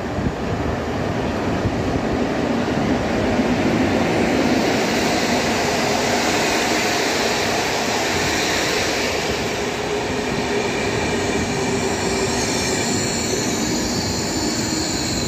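Electric locomotive and its Intercity passenger carriages running past close along the platform: a loud, steady rumble of wheels on rail, loudest about four seconds in as the locomotive goes by, then the carriages rolling past.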